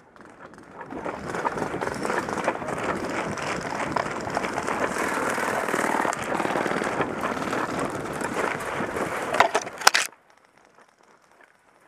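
Running footsteps through deep dry leaf litter: a loud, continuous crunching and rustling. A few sharp cracks sound near the end, and then the noise stops abruptly.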